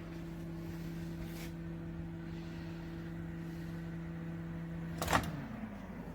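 Bomann built-in microwave oven running with a steady hum, then a sharp click about five seconds in as it stops, the hum falling in pitch as the motor winds down.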